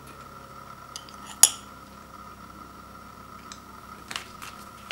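A metal utensil clinks against a ceramic bowl of cooked rice. There is one sharp clink about one and a half seconds in, then a few lighter taps near the end.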